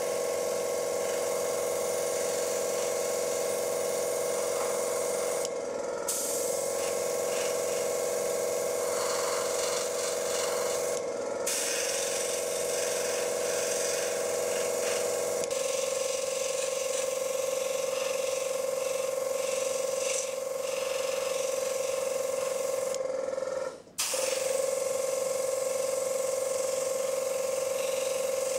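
Small airbrush compressor running steadily, with a continuous hiss of air from the airbrush as it sprays. The hum drops out briefly a few times.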